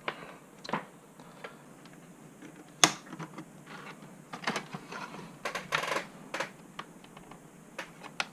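Scattered sharp plastic clicks, taps and light scrapes from handling and prying at an Asus X551CA laptop's plastic case, with one sharp click about three seconds in and a quick flurry of clicks around six seconds in.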